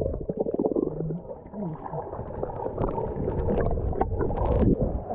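Swimming pool heard through a camera held underwater: muffled gurgling and crackling bubbles, with low warbling sounds, as a swimmer goes under. A brief brighter splash comes about four and a half seconds in.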